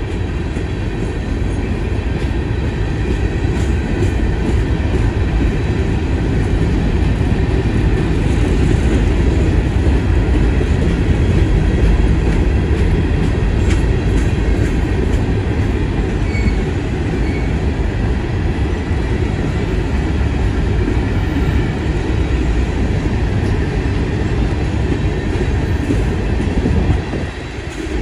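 Loaded Herzog ballast hopper cars rolling past at close range: a steady rumble of steel wheels on the rails. The loudness dips briefly near the end.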